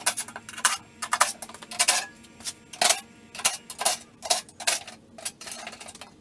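Irregular sharp metallic clinks and clatters, about two or three a second, from a cordless drill/driver and bolts working against the sheet-metal case of a hybrid-car lithium polymer battery pack being taken apart.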